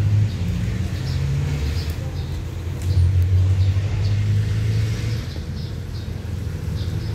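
Diesel locomotive engine running close by, a deep steady hum that rises in pitch and grows louder about three seconds in, then eases back after about five seconds, as the engine is throttled up by the green-flag departure signal.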